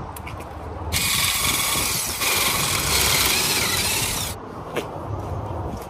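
Cordless impact wrench running on a truck's lug nuts, taking them off the wheel: a loud, dense rattle that starts about a second in and cuts off a little over four seconds in. A few faint clicks come before it.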